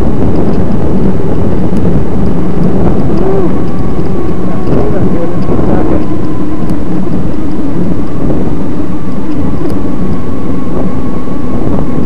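Loud wind buffeting on the microphone over the steady whine of a chain-drive electric bicycle motor pulling up a steep dirt hill; the whine settles at one pitch about halfway through.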